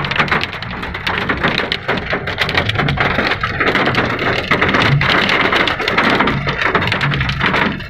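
Hail and heavy rain pelting a car's roof and glass, heard from inside the cabin as a dense, continuous rattle of countless small hits.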